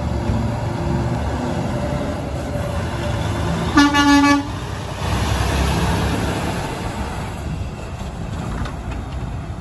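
Semi tractor-trailer's diesel engine running as the truck pulls through a turn close by, getting louder as it passes. A single short vehicle-horn toot sounds about four seconds in.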